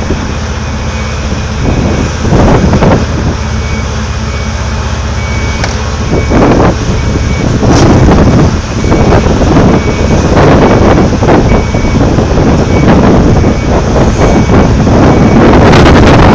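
Heavy mining machinery rumbling steadily, with a backup alarm beeping about once a second. Wind buffets the microphone, louder in the second half.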